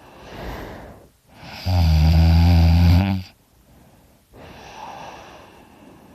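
A person snoring very loud in his sleep: a breathy breath, then a loud, low-pitched snore lasting about two seconds, then another breathy breath.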